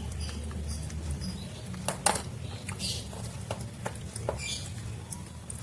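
A baby monkey making faint short high squeaks, mixed with scattered light clicks and taps, the sharpest a pair about two seconds in.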